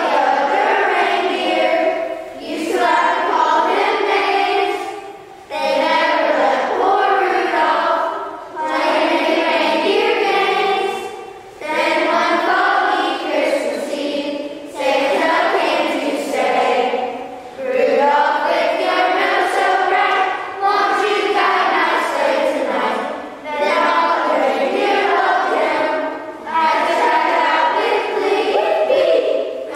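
A group of children singing together as a choir, line by line, with short breaks for breath between phrases every few seconds.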